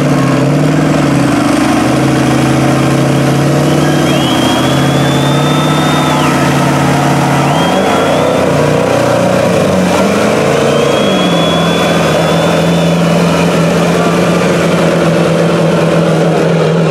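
Two lifted diesel pickups, a mud truck with a Dodge Ram body and a Ford Super Duty, running at full throttle under heavy load as they pull against each other and pour black smoke. The engine note shifts a few times and then holds steady, with a high whistle rising and falling a few times over it.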